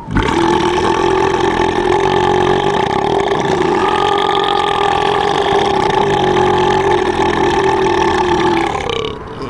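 A single, very long, loud cartoon belch from an animated grey seal character. It starts abruptly, holds a steady pitch for about nine seconds, and trails off near the end.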